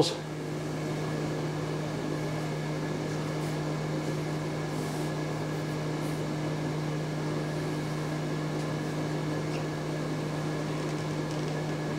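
A steady low machine hum with a few fainter higher tones held over it, unchanging throughout.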